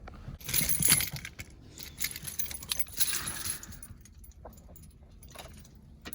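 Light metallic jingling and rustling of small items being handled, in a burst about half a second in and another around three seconds in, with a few fainter clicks after.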